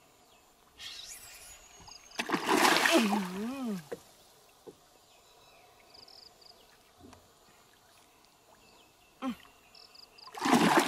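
A hooked giant snakehead thrashing and splashing at the water surface during the fight, two loud splashes, one about two seconds in and one near the end, with quiet water between.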